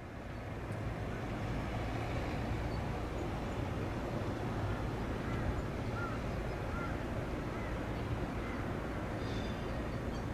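Steady outdoor background rumble, fading in over the first second or so, with a few short bird chirps around the middle.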